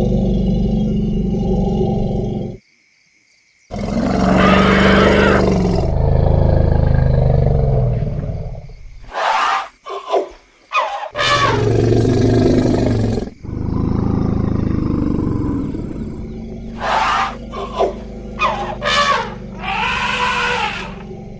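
Elephants calling: deep rumbling roars, broken by a second of silence about three seconds in, then a loud roar and a run of short, high trumpets whose pitch rises and falls, several in quick succession near the end.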